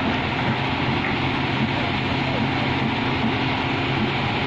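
Hyundai crawler excavator's diesel engine running at a steady pitch, with no revving, as the hydraulic boom lowers the bucket.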